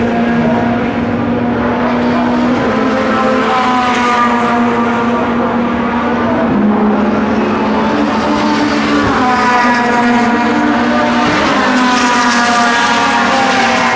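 British Touring Car Championship (BTCC) touring car engine running at high revs on the circuit, loud and continuous. Its pitch climbs and drops repeatedly as the car accelerates through the gears and lifts for corners.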